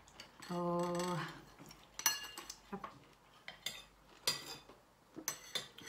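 Metal spoon clinking against a ceramic soup bowl while she eats broth: a series of sharp, irregular clinks.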